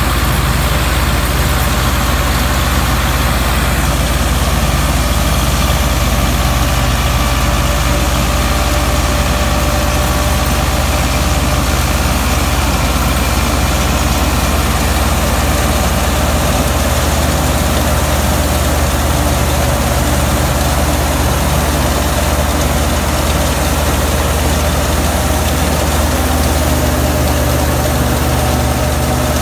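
Belarus 510 tractor's four-cylinder diesel engine running steadily under load, driving a wheat straw chopper through the PTO. The engine's low drone sits under a wide, even hiss from the working machinery.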